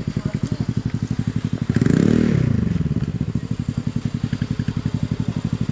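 KTM RC 390's single-cylinder engine idling with a quick, even beat, given one short throttle blip about two seconds in that rises and falls back to idle.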